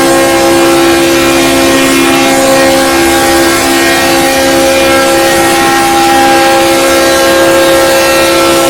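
Locomotive air horn held in one long continuous blast, a steady chord of several tones sounding together.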